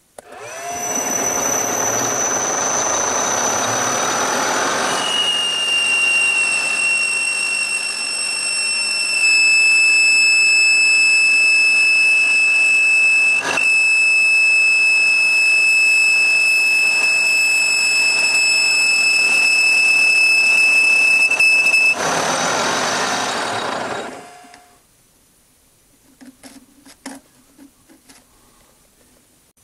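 Metal lathe running while turning down a steel shaft. A steady high whine sounds through the cut from about five seconds in until just after twenty seconds. Near the end the lathe winds down and stops, leaving a few faint clicks.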